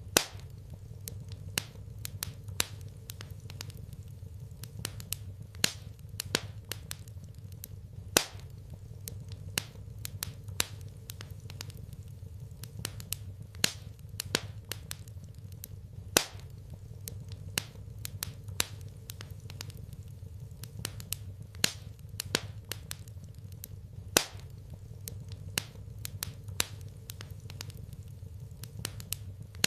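Wood fire crackling in a fireplace: irregular sharp pops and snaps, a few of them loud, over a steady low hum.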